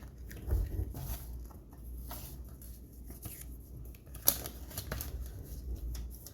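A small cardboard box and its packaging being handled: rustling and scattered light clicks as the contents are taken out, with one sharper click about four seconds in.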